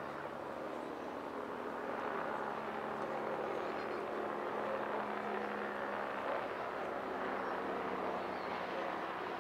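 Westland Wasp HAS.1 helicopter flying past: its Rolls-Royce Nimbus turboshaft engine and rotors make a steady rushing noise that grows louder about two seconds in. A low hum fades out after about six seconds.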